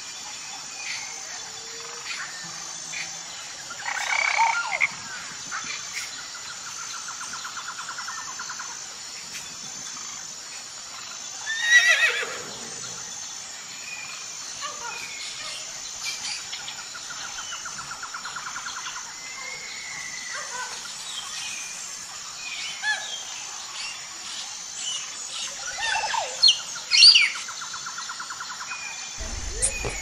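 Forest ambience: a steady high insect hum with scattered bird chirps and calls, and a rapid pulsing trill that comes back three times. A louder call stands out about twelve seconds in, and there are sharp chirps near the end.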